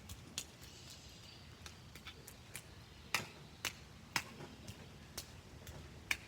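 Raindrops striking an umbrella: sparse, irregular sharp taps over a faint hiss, with a few louder drops in the second half.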